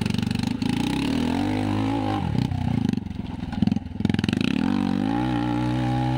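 Motorcycle engine revving hard in low gear as the rear wheel spins in loose dirt on a steep climb. The pitch falls and rises several times, climbing near the end.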